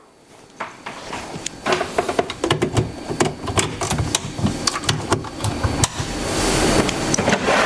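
Canon MF284dw laser multifunction printer starting up after being switched on: a run of clicks and whirring as its mechanism initialises, with a rushing noise building up about six seconds in.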